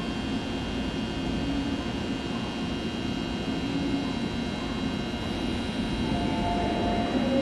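Steady drone of a standing Seoul Subway Line 8 electric train, a low rumble with several thin high whining tones held level over it.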